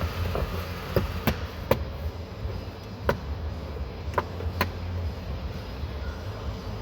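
Plastic interior trim panels being handled and pressed into place around a steering column, giving about six sharp clicks and taps over a steady low hum.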